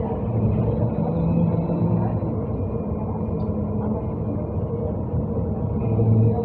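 Cabin noise inside a moving BKM trolleybus: a steady low rumble from the ride and road, with a faint high electric whine held underneath.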